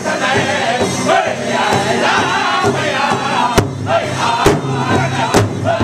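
Powwow drum group of young male voices singing together in a loud, high chant around a large hide drum. About three and a half seconds in, hard unison drumbeats come in, roughly one a second.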